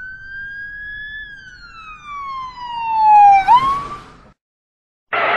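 A single siren-like sliding whistle tone used as a comic sound effect. It rises slightly and then slides down slowly for about two seconds, growing louder, swoops back up and cuts off. A burst of noise starts right at the end.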